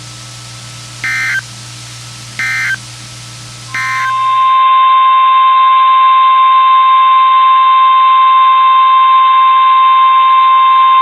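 NOAA Weather Radio test signal: three short bursts of SAME digital header data, then the steady 1050 Hz weather radio warning alarm tone, which comes in about four seconds in and holds.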